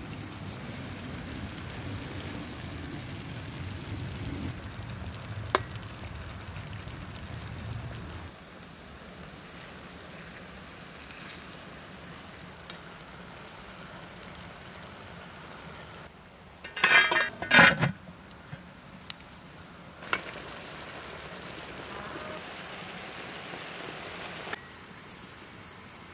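Beaten eggs poured into a pan of chicken and tomato stew simmering over a wood fire, the stew bubbling and sizzling steadily. A brief loud clatter comes about two-thirds of the way through.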